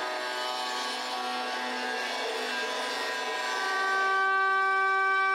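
Angle grinder with a cutting disc running along the edge of a fiberglass laminate panel, trimming it to size: a steady whine over grinding noise. A little over three seconds in it gives way to a trim router running along the laminate edge, a steadier, slightly louder whine.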